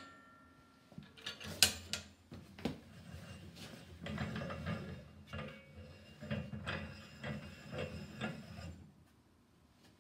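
Hand-worked steel mechanism of a homemade Puckle gun: a few sharp metal clicks, then several seconds of rattling and scraping as the crank at the back and the revolving cylinder block are worked to bring the next chamber into line.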